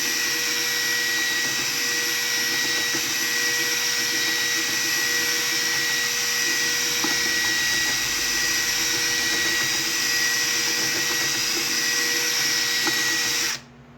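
Electric power mixer, most likely a drill with a mixing paddle, running steadily at one speed while stirring about three liters of thick-pour epoxy resin. It cuts off suddenly near the end.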